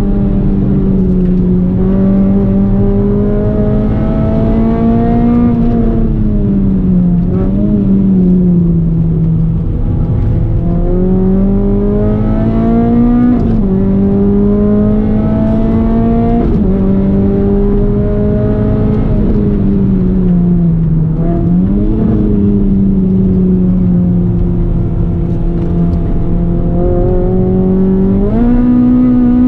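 Renault Clio 197's 2.0-litre four-cylinder engine driven hard on a race track. The engine note climbs with revs, drops abruptly at upshifts about thirteen and sixteen seconds in, and glides down under braking several times before climbing again.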